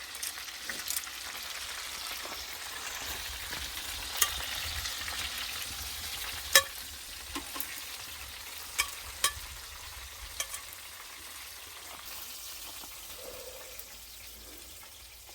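Food sizzling in a hot frying pan, the hiss slowly fading, while a utensil stirring it clicks sharply against the pan several times, loudest about six and a half seconds in.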